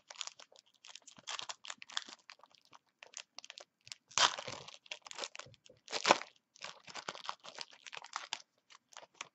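Foil trading-card pack wrapper being torn open and crinkled, a dense run of crackling with two louder rips about four and six seconds in.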